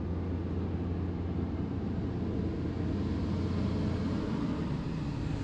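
A steady low hum under an even rush of background noise, unchanging throughout.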